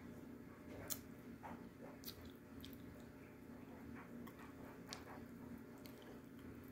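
A person chewing crunchy half-roasted edible clay with the mouth closed: faint, irregular crunches and clicks.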